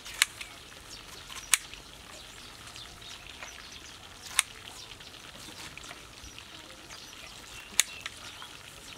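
A knife cutting a peeled pineapple on a plate: a few sharp clicks several seconds apart as the blade goes through the fruit and taps the plate, over a faint steady outdoor background.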